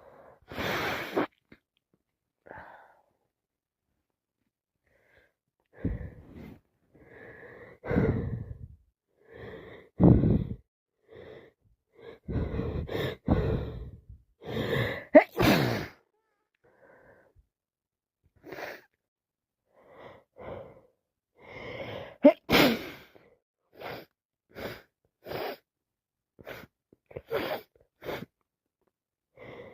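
A person sneezing again and again, with wheezy, gasping in-breaths between the sneezes. Near the end comes a quick run of short breaths.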